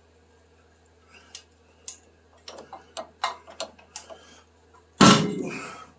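A wrench clicking in short, irregular strokes on seized exhaust manifold nuts. About five seconds in comes one loud, sudden crack that rings out for about a second, as a rusted manifold stud shears off.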